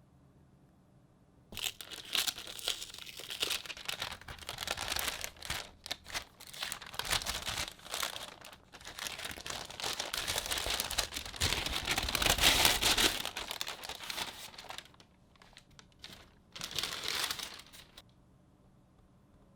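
Packaging being handled and unwrapped, with crinkling and rustling. It starts about a second and a half in, goes on irregularly with short pauses, and stops shortly before the end.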